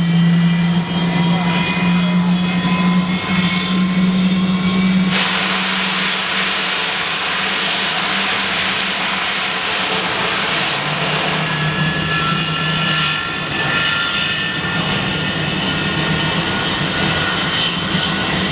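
English Electric Lightning's twin Rolls-Royce Avon turbojets running with a high whine over a low drone. About five seconds in, a sudden loud rush of jet noise joins the whine.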